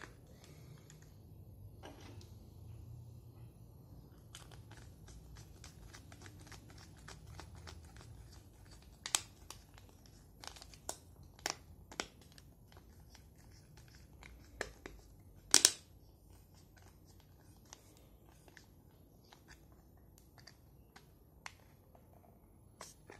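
Hands handling a plastic digital multimeter in its rubber holster: scattered sharp clicks and light rubbing of plastic and rubber. The two loudest clicks come about nine seconds in and about fifteen and a half seconds in.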